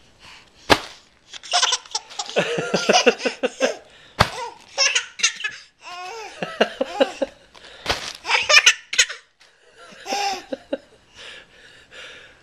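A six-month-old baby laughing in repeated high-pitched bursts, with a few sharp smacks in between.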